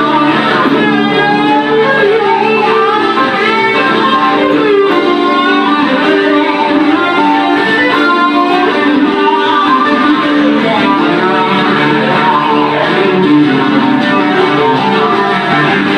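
Two guitars playing live, a fast, busy lead line over acoustic guitar accompaniment, with some wavering, bent notes.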